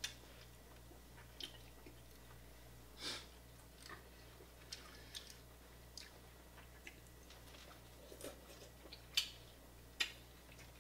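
Eating sounds: faint chewing with a dozen or so scattered sharp crackles and clicks as crab legs from a seafood boil are cracked and picked apart by hand.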